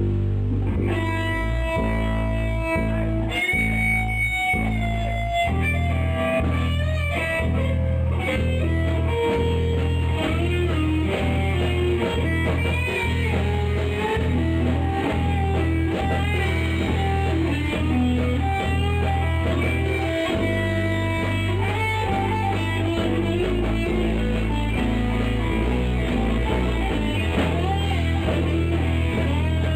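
Improvised rock jam: electric guitar playing lead lines with bent notes over a repeating bass guitar line.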